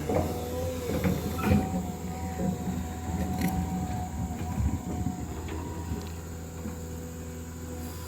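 Diesel engine of heavy earthmoving equipment running steadily, with a held whine from about one and a half to five seconds in and scattered knocks and clanks.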